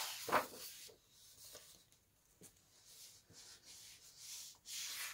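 A thick paper page of a coloring book being turned, a papery swish with a crisp flap about half a second in, followed by faint rubbing of a hand on the paper and a soft rustle near the end.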